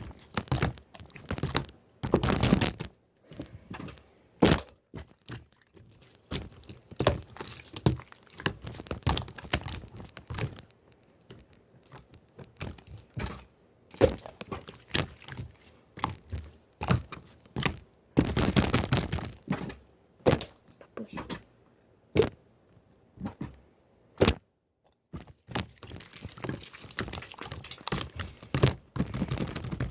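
Slime being squished, poked and folded by hand, giving irregular sticky clicks and pops with denser crackling bursts a few times.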